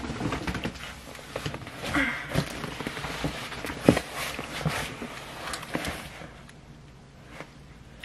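A large cardboard shipping box and the packaging around it being handled: scattered rustles and knocks, with one sharper knock about four seconds in, dying away after about six seconds.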